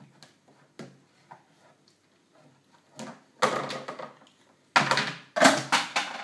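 Toddlers banging plastic plates on high-chair trays: a few light taps, then loud bangs about three seconds in and several more near the end.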